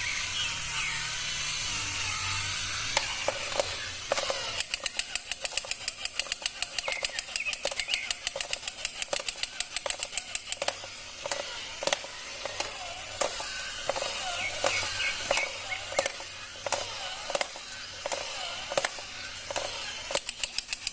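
A rapid run of sharp clicks, about ten a second, for several seconds, then scattered single clicks. Birds chirp and a steady high insect hiss runs underneath.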